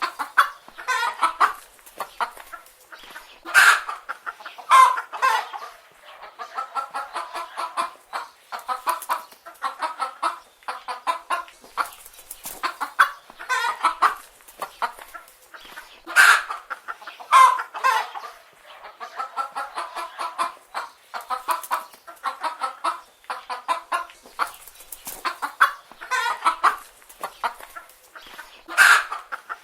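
A flock of chicken hens clucking without pause, many short calls overlapping, with louder calls standing out every few seconds.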